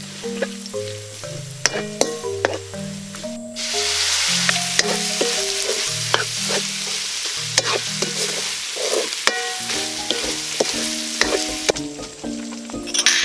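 Food frying in hot oil in a wok, stirred and tossed with wooden spatulas: a loud sizzle that swells a few seconds in and drops away near the end, with sharp scraping clicks of the spatulas against the pan. Background music with plucked or mallet notes plays underneath.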